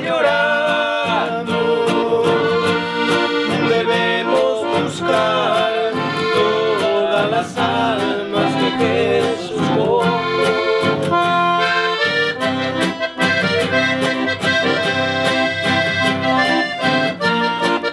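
Piano accordion playing a hymn melody over nylon-string acoustic guitar accompaniment.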